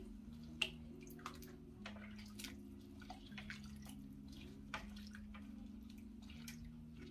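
Water sloshing, splashing and dripping as raw chicken pieces are swished by hand in a bowl of hot water in a steel sink, with scattered small clicks and drips, the sharpest about half a second in. A faint low drone shifts pitch every second and a half or so underneath.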